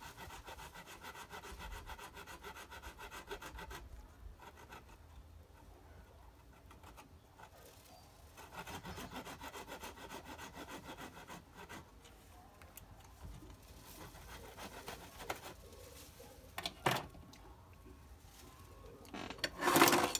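Rapid back-and-forth scraping as a hand tool cuts at a power drill's worn-short carbon brush, in two spells of a few seconds each. A couple of sharp knocks come near the end.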